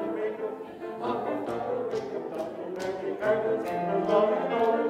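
Mixed choir singing a fast, rhythmic American folk-song arrangement with piano accompaniment, the voices on "la la la" syllables instead of the words.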